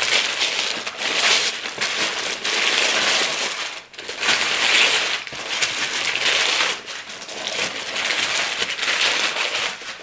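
Gift wrapping paper being torn off a box and crumpled by hand, a loud run of rustling and ripping bursts with brief pauses.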